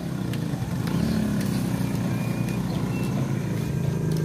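A motorcycle's small engine running close by, its pitch rising a little about a second in and then holding steady.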